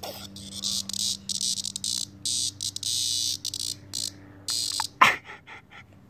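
Cicada's distress buzz from inside a dog's mouth, coming in repeated broken high-pitched bursts, with a short, sharp, louder sound about five seconds in.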